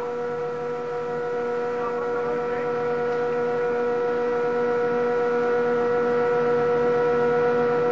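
A boat's machinery running with a steady, even-pitched whining hum that grows slowly louder.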